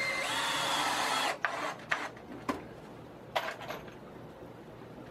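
Cordless drill running for about a second and a half, driving a screw into the wooden stand with a motor whine, followed by a few sharp clicks and knocks.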